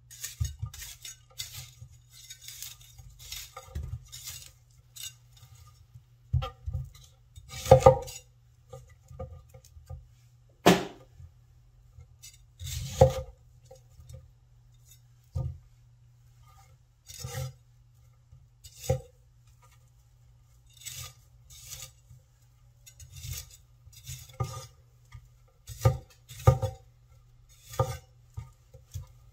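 Chinese vegetable cleaver cutting broccoli on a wooden cutting board: crisp cuts through the florets and stalks, and knocks of the blade on the board. The strokes come irregularly, singly or in short runs, with short pauses between them and a few louder knocks.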